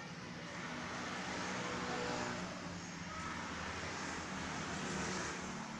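Engine of a small box truck running as the truck pulls slowly forward, a steady low hum with street noise around it.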